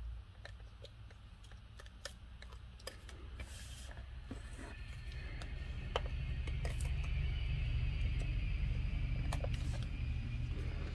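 Small clicks and rustles of card stock and tape being handled and pressed down on a cutting mat, with a steady low rumble that grows louder from about halfway.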